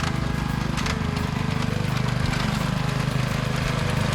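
Small engine of a walk-behind rice binder running steadily with a fast, even pulse while the machine cuts rice plants and ties them into bundles. There are a couple of sharp clicks near the start.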